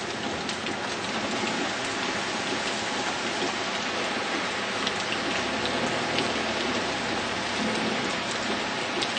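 Heavy rain falling on and around a car, heard from inside it: a steady hiss with scattered sharp drop ticks.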